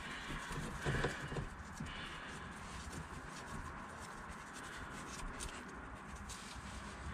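Quiet handling under a car during an oil change. A soft knock about a second in as the oil drain pan is set in place, then faint ticks and scraping as a gloved hand turns out the loosened sump drain plug.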